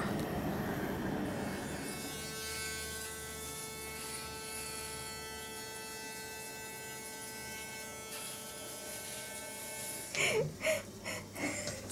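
Electric shaver running with a steady hum, fading near the end, followed by a few short sharp sounds.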